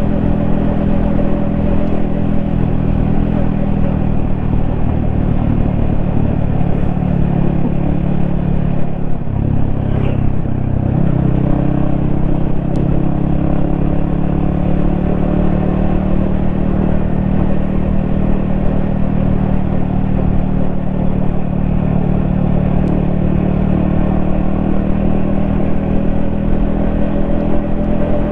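Yamaha XSR155's 155 cc single-cylinder engine running steadily under way, picked up by a helmet-mounted camera; its note briefly drops and changes about nine to eleven seconds in, then holds steady again.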